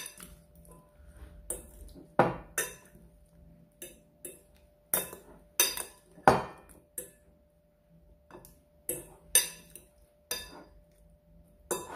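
A metal fork clinking and scraping against a glass bowl in irregular knocks while tossing raw prawns and crab legs in seasoning.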